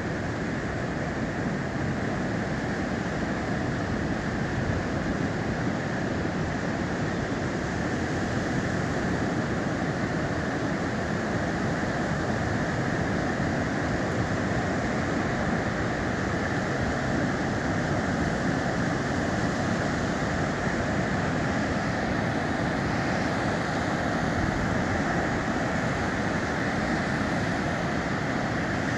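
Steady rushing noise of sea surf breaking on a beach, even and unbroken with no distinct events.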